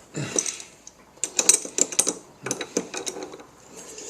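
Adjustable (crescent) wrench and steel parts clinking and rattling on a mini lathe while the clamped workpiece is unbolted, in several short clusters of sharp metallic clicks.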